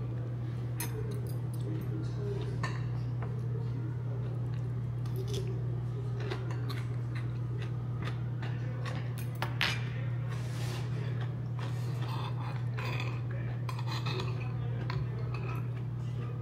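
Eating utensils clinking against a bowl and dishes during a meal: scattered light clicks and clinks at irregular moments, over a steady low hum.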